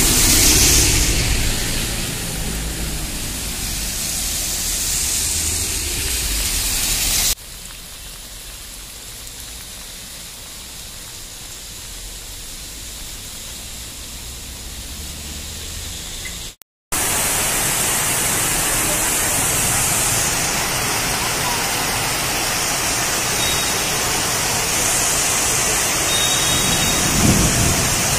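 Heavy rain falling on a wet road, a steady hiss. In the first few seconds a car's engine and tyres on the wet road rumble under it. The rain drops suddenly to a quieter hiss about seven seconds in, then comes back louder about seventeen seconds in.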